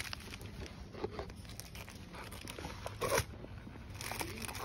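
Plastic food packaging crinkling and rustling as packs are handled and pulled from a shelf, with a louder rustle about three seconds in.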